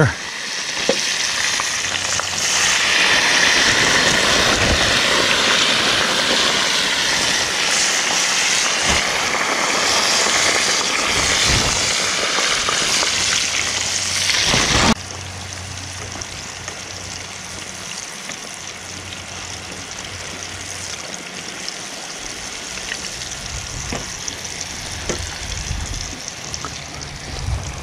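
Hot grease frying French fries and white perch in an outdoor fish cooker, a loud, steady sizzle and bubble from the ice on the fries. About halfway through it suddenly drops to a quieter, steady frying sizzle.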